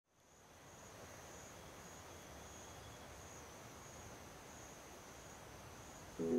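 Faint outdoor insect chorus, a steady high-pitched buzzing drone that fades in at the start. Loud plucked-string music comes in abruptly just before the end.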